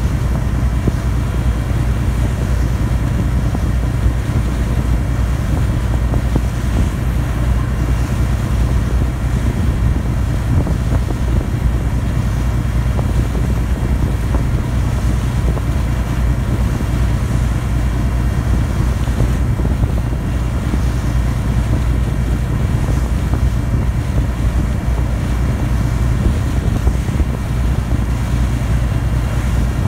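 Steady low drone of a passenger ferry's engine heard on board, with a wash of wind and water noise over it.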